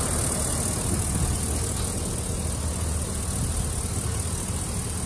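Pickup truck engine idling steadily at normal idle, heard from close to the open engine bay.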